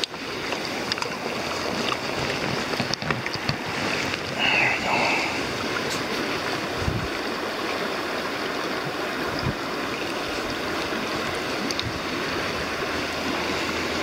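Shallow river current rushing over a rocky bed, a steady noise of flowing water, with a brief louder sound a little over four seconds in.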